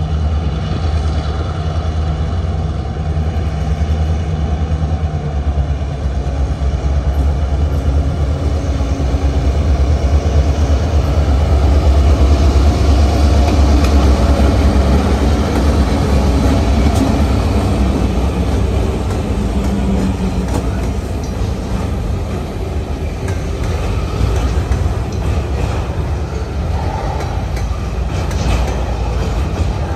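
Two Roberval-Saguenay diesel locomotives rumbling as they approach and pass close by, the engine drone swelling to its loudest about halfway through and then easing off. Near the end, freight cars roll past, wheels clacking over rail joints.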